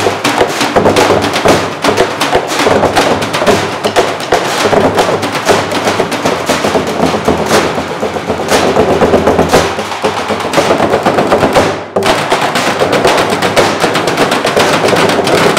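Drumline playing fast stick patterns on metal trash cans, a metal barrel and a plastic water cooler: a dense clatter of rapid strokes that drops out for an instant about three quarters of the way through.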